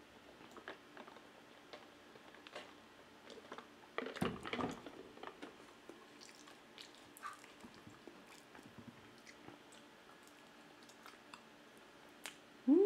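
Close-miked eating sounds: quiet chewing with soft wet clicks and smacks, and a louder burst of mouth noise about four seconds in. A short hummed "mm" begins right at the end.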